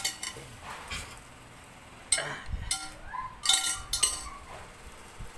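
Metal tongs clinking against the glass bowl and wire rack of a turbo broiler as a roast chicken is turned over. A handful of sharp clinks, the loudest about two seconds in and a quick cluster about three and a half seconds in.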